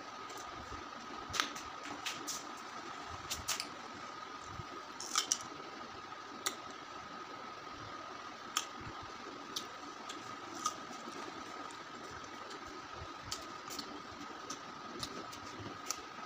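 Eating sounds: scattered short mouth clicks and lip smacks as salt and chili are licked off the fingertips, with a quick cluster of them about five seconds in. Under them runs a steady background hiss with a faint high, even whine.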